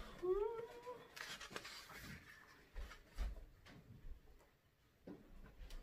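Sheets of paper being handled and shuffled, with scattered rustles and light knocks against the cardboard box. Just after the start, a brief rising hum from a person's voice.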